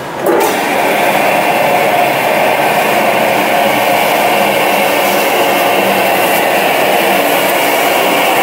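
Steady whir of a running plastic extrusion laminating line, its motors, drives and blowers running together with several steady tones in the noise. It comes in abruptly a moment in and then holds even.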